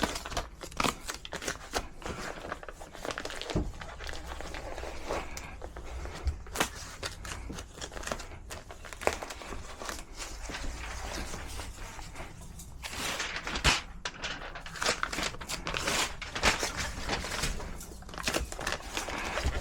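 Duct insulation wrap crinkling and rustling as it is handled and wrapped around a sheet-metal supply plenum, with scattered sharp clicks and taps.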